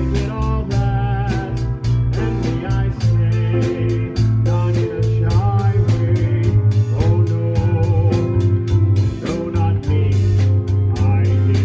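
A small band playing a song: electric bass, guitar and a steady beat, with a wavering sung melody on top.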